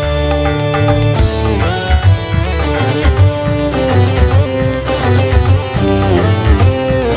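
Dangdut band music without vocals: an instrumental passage with a melody that slides between notes over a bass line and a steady drum beat.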